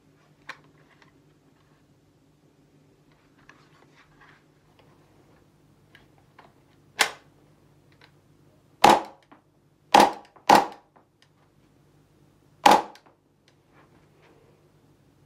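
Gas blowback airsoft pistol (WE G17) in a 3D-printed carbine kit, its action cycling with five loud, sharp snaps a second or two apart, two of them in quick succession. Fainter handling clicks come before the snaps.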